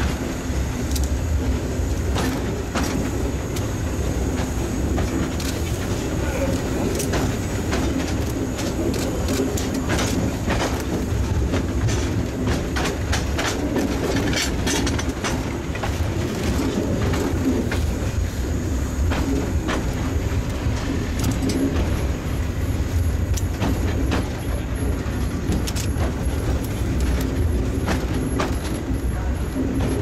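760 mm narrow-gauge steam locomotive running along the track: a steady low rumble with irregular clanks and clicks.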